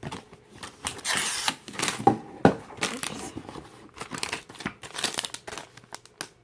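Plastic bags of Lego pieces being handled and opened, crinkling and rustling, with a few sharp clicks about two seconds in.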